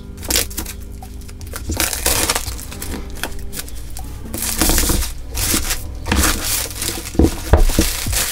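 Clear plastic shrink wrap being peeled and torn off an iPad Pro box, crinkling and crackling in repeated bursts. It is crumpled in the hand near the end.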